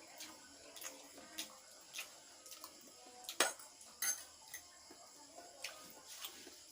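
Cutlery clinking and scraping against a plate during a meal: scattered short, sharp clinks, the loudest about three and a half seconds in.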